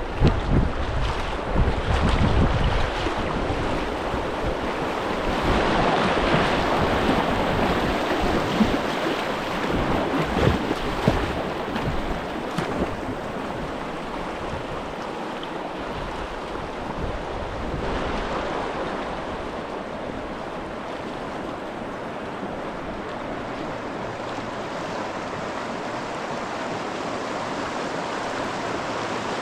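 Moving river water rushing steadily over a rapid, with wind gusting on the microphone and rumbling during roughly the first half.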